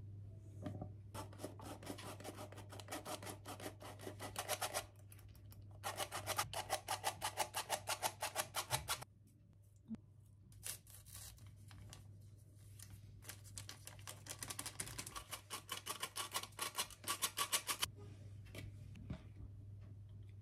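Hand-operated stainless steel flour sifter being worked in rapid, even strokes, rasping flour through its mesh. It goes in three spells of a few seconds each with short pauses between.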